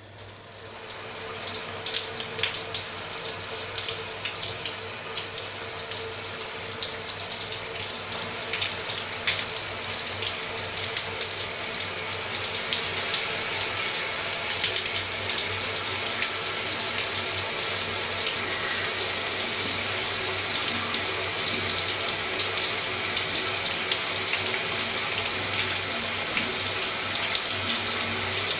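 Water spraying from a round LED shower head. It comes on suddenly and grows fuller over the first several seconds, then settles into a steady hiss of spray and splashing. A low steady hum runs underneath.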